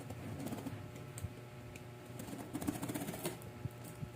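Light clicks and taps of an appliance box and its packaging being handled and opened, with a quick run of clicks about two and a half seconds in.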